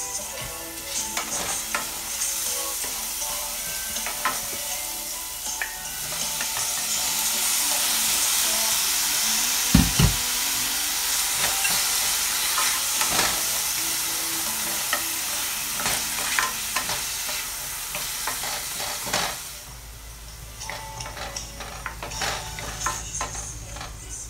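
Chopped onions, bell peppers and garlic sizzling in hot oil in a stainless steel pot while a wooden spoon stirs them, with scattered knocks and scrapes of the spoon on the pot. The sizzle swells about a quarter of the way in, stays loud through the middle with a single heavy thump, and dies down near the end.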